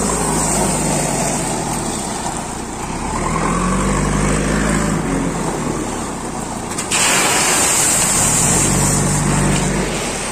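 JCB backhoe loader's diesel engine running and revving up twice as it works the loader arm and bucket. About seven seconds in, a loud rushing hiss comes in suddenly and lasts about three seconds.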